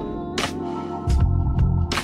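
Instrumental background music: held chords over a moving bass line, with a couple of sharp percussive hits.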